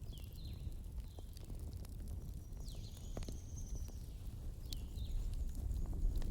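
Wood fire burning in a fireplace: a low, steady rumble with scattered sharp crackles and pops. A few short high whistles sound over it, one longer about halfway through.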